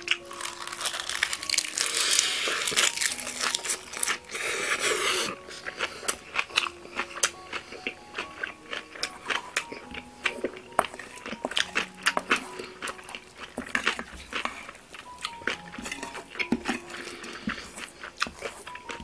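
Close-up chewing of a mouthful of bibimbap wrapped in dried seaweed, crunching loudly for about the first five seconds. After that a metal spoon clicks and scrapes against a stainless steel bowl as the rice is stirred, with quieter chewing between.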